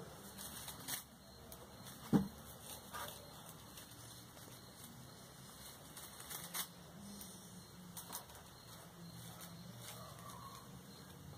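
Scattered light clicks and ticks of hands working copper or aluminium bonsai wire around boxwood branches, with one sharper knock about two seconds in.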